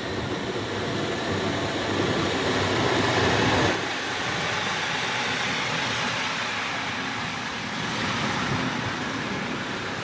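Saalasti-built Tte rail tractor (Tte 91202, a track maintenance machine with a crane) passing close by on the track: its engine running and its wheels rolling on the rails. The sound is loudest a few seconds in and eases slightly as the machine goes by.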